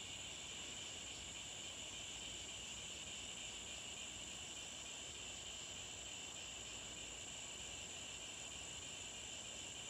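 Steady high-pitched chorus of insects trilling without a break, two pitches sounding at once, one very high and one a little lower.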